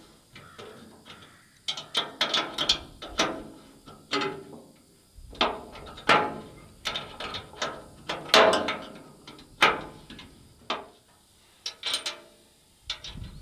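Ratchet wrench clicking in quick runs, with metal rattles, as a bolt on the rotary cutter's rear wheel bracket is undone to move the wheel down one hole.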